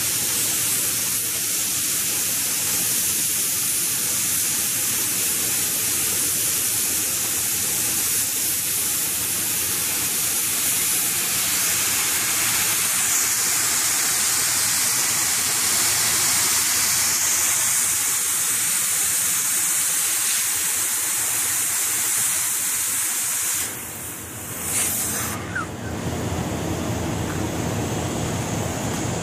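Oxy-fuel cutting torches on a multi-torch gantry machine hissing steadily as they cut through steel plate. About five seconds from the end the hiss dips and gives way to a lower, heavier rush.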